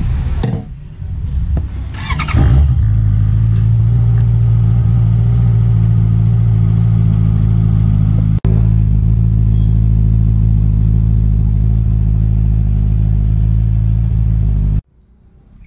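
A Honda sportbike's engine is started about two seconds in and settles into a steady idle. There is a momentary dropout about eight seconds in, and the engine sound cuts off abruptly near the end.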